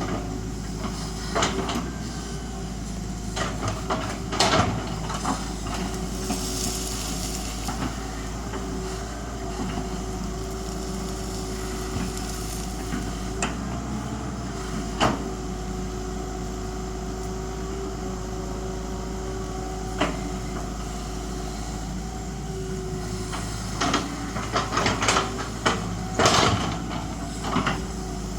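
Excavator's diesel engine running steadily, with scattered clanks and knocks from the machine at work, several in quick succession near the end.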